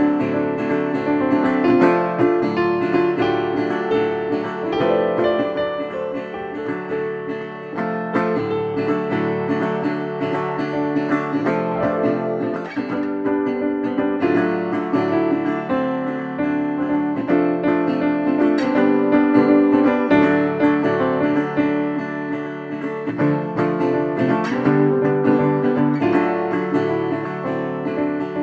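Background music led by plucked and strummed acoustic guitar.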